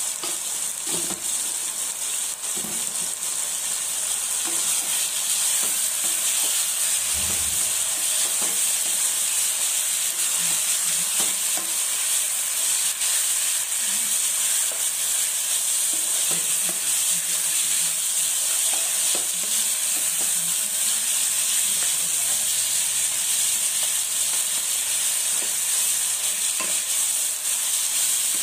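Chicken pieces frying in hot oil and masala in a nonstick kadai, a steady sizzle, while a wooden spatula stirs and scrapes through them in scattered short strokes.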